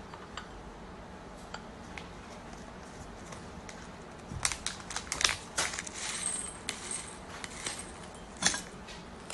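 A run of light clicks and clinks of small hard objects being handled, from a little before halfway to near the end, the loudest near the end.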